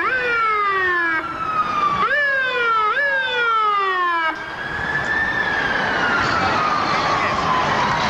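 Emergency vehicle sirens. For the first four seconds a siren rises sharply and then falls slowly, about once a second. After an abrupt change it becomes a slower wail that rises and then falls away over several seconds, over a steady noisy background.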